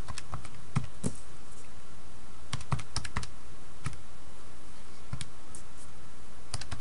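Keys being pressed one at a time to enter a division into a calculator: a scattered series of light clicks.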